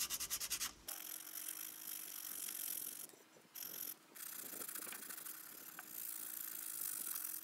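Sandpaper rubbing by hand over hardened polyester body filler on a car wheel rim, with 80-grit paper knocking down the high spots. The first second is fast, even back-and-forth rasping strokes. After that the rubbing is softer and less regular, over a faint steady hum, and it drops out briefly twice about three to four seconds in.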